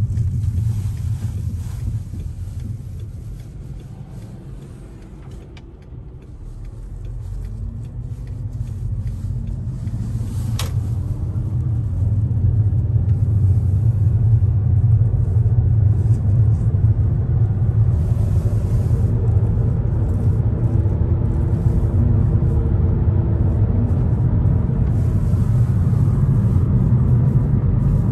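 Low rumble of a 2008 Volkswagen Passat 1.8 TSI running. It dies down a few seconds in and builds back up over the next several seconds, then holds steady.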